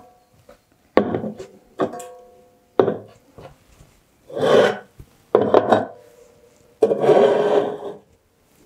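Aluminium drink cans handled on a wooden table: three sharp knocks, each with a brief metallic ring, as cans are set down, then three longer scrapes as cans are slid across the tabletop.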